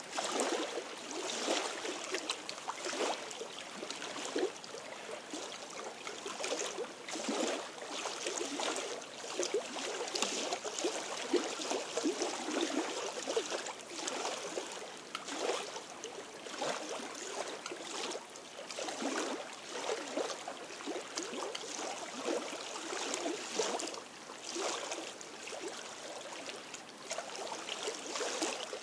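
Small lake waves lapping and splashing irregularly against rocks at the shore, a steady wash of water broken by many small splashes.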